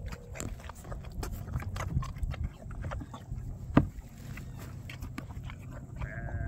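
Young foal slurping and chewing wet mash from a plastic feed bucket: irregular wet smacks and clicks, with one loud knock just past halfway as the muzzle goes down into the bucket. A short squeaky tone sounds near the end.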